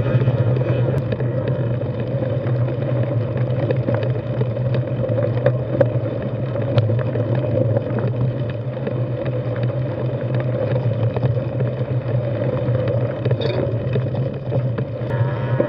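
Steady rumbling noise of a mountain bike on wide 27.5+ tyres rolling over rocky dirt singletrack, heard through a handlebar-mounted camera, with scattered sharp clicks from stones and rattling parts.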